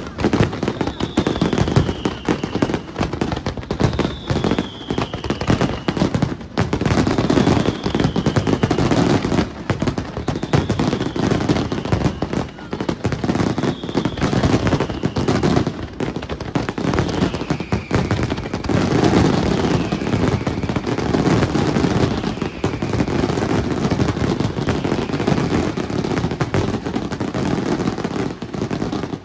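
Fireworks display in a dense, rapid barrage of shell bursts, bangs and crackle, with a falling whistle recurring about every two seconds.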